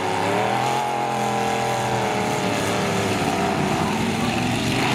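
Demolition derby trucks' engines running hard and revving, the pitch rising and falling as they drive across the mud pit.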